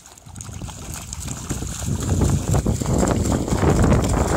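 Siberian husky pawing and stamping in a shallow rainwater puddle: quick repeated splashes that grow louder about a second in.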